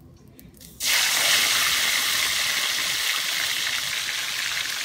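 Hot oil in a wok on a gas burner sizzling loudly as fish fries, a steady hiss that starts abruptly about a second in.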